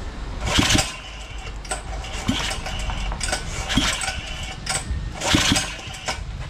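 Buffalo 6.5 hp four-stroke engine being cranked by hand with its recoil pull-starter: about four short pulls, roughly one every one and a half seconds, the engine turning over without catching. It has almost no compression, which the mechanic suspects comes from wrong piston rings.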